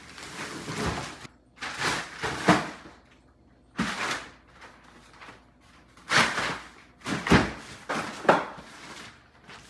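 Irregular knocks, thumps and rustles as a large boxed LEGO set in its carrier bag is picked up and carried, with footsteps on a wooden floor.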